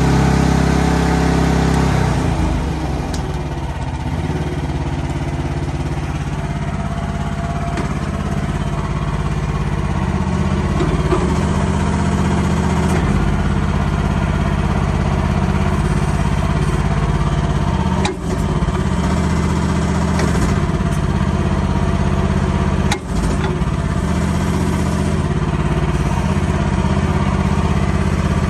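Small gasoline Briggs & Stratton engine of an AGT QH-12 mini excavator running steadily, its sound dipping briefly twice in the second half.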